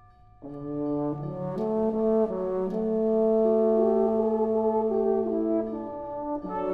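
High school concert band playing full, brass-led chords: after a faint held tone the band comes in loudly about half a second in, holding and shifting sustained chords, then breaks off briefly near the end before the next entrance.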